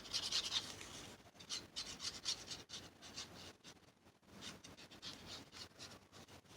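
Paper edges being inked: an ink pad rubbed along the edge of a paper piece in repeated short, scratchy strokes, loudest in the first second.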